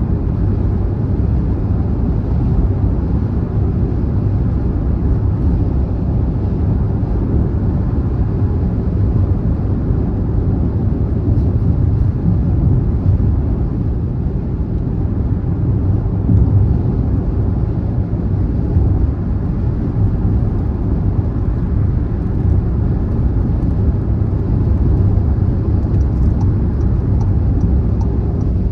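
Steady low road and tyre rumble of a car at motorway speed, heard from inside the cabin.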